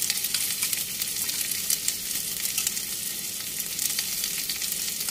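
Tilapia pieces, red chillies and garlic sizzling in hot oil in a nonstick frying pan: a steady hiss with many small crackles, just after a spoonful of oyster sauce has gone in.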